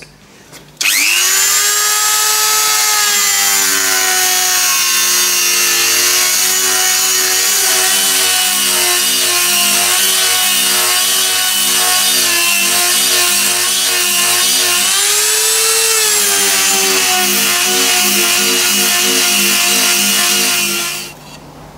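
Dremel rotary tool with a small sanding drum running at high speed, sanding the inside of holes in a carbon fibre sheet. Its high whine starts about a second in, dips and wavers as the drum bears on the edge, rises briefly around the three-quarter mark as the load comes off, and stops near the end.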